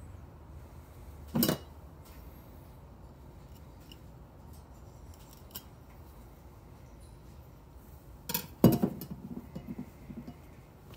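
Hand-and-knife handling sounds while breasting a Canada goose, feathers and skin being pulled and worked with a knife. A short sharp burst comes about a second and a half in, a louder cluster of sharp sounds about eight and a half seconds in, and faint ticks fall between them over a low steady hum.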